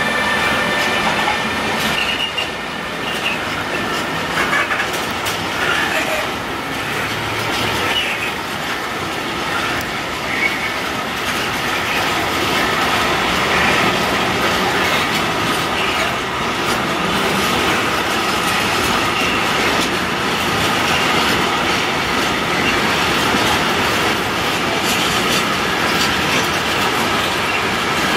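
Freight train of tank wagons rolling past behind electric locomotives: steady rumble of wheels and clatter over rail joints, with thin wheel squeals.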